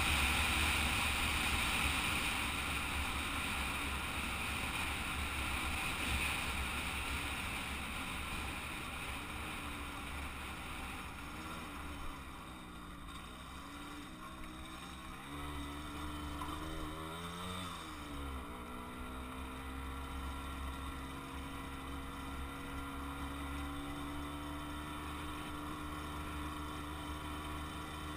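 Kreidler moped engine running while riding, with wind noise on the microphone. The engine note falls away and wavers up and down in the middle as the moped slows and picks up again, then settles into a steady note.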